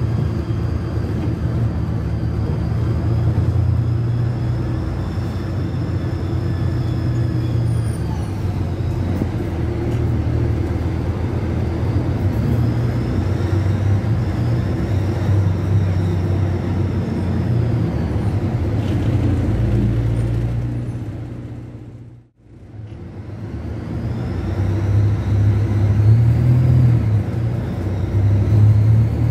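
Volksbus 18.280 OT city bus's rear-mounted MAN D08 inline-six diesel heard from the cabin, running under way with a thin high whistle that rises and falls with engine speed. The whistle is put down to the air-conditioning belt, though it could be the turbo. The sound drops out abruptly about two-thirds of the way through, then returns and builds.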